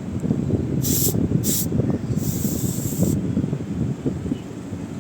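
Refrigerant gas hissing in short bursts during charging of the air conditioner, twice briefly in the first two seconds and then for about a second, over a steady low rumble.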